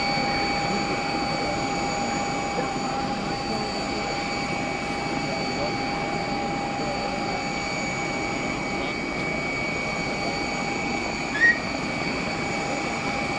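Steady whine and hiss of a jet aircraft's turbine running, several high tones holding unchanged. A short, sharp rising chirp about eleven and a half seconds in.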